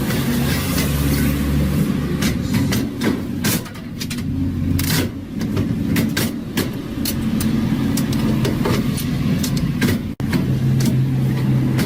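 Vending machine running: a steady motor hum that shifts in pitch now and then, with many sharp clicks and knocks from its mechanism. The sound cuts out for an instant about ten seconds in.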